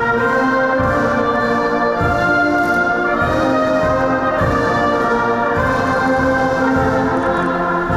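Brass band music playing slow, held chords at a steady loud level.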